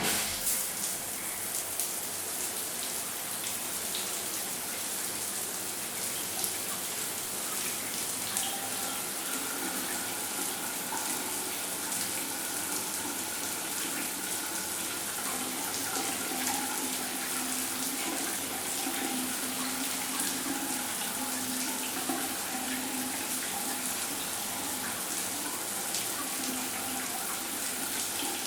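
Shower running, a steady hiss of spraying water that starts abruptly and goes on without a break; faint steady tones join in about eight seconds in.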